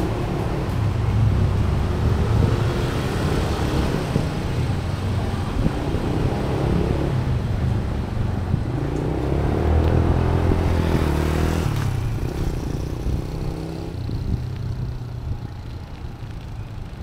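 Road traffic: vehicle engines running close by, one rising in pitch as it accelerates around ten seconds in, and the noise easing off near the end.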